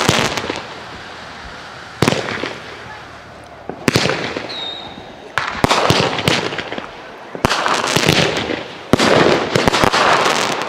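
Aerial firework shells bursting one after another, six sharp bangs about every one and a half to two seconds, each dying away over a second or so. The later bursts are followed by quick crackling.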